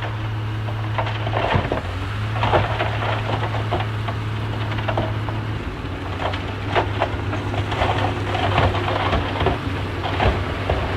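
Shantui crawler bulldozer's diesel engine running steadily, with irregular clanking and crunching from the steel tracks and the soil and stone being pushed. The engine note dips slightly a little past halfway.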